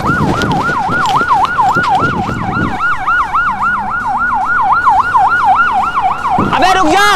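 Fast yelp-style police siren horn, its pitch sweeping up and down about five times a second. A rough noise sits under it for the first few seconds, and a second, lower wavering tone joins near the end.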